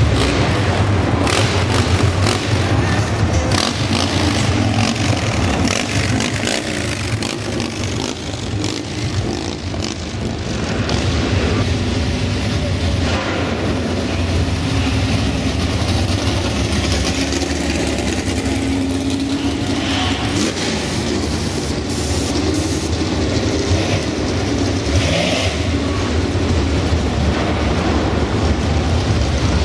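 Muscle car engines running with a deep, steady rumble as the cars drive past one after another.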